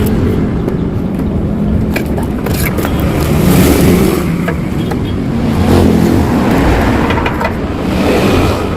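Yamaha RX-King's single-cylinder two-stroke engine revving through a hollowed-out exhaust, the revs swelling and dropping back about three times. The muffler's insides have been cut out to give it a crisp, raspy note.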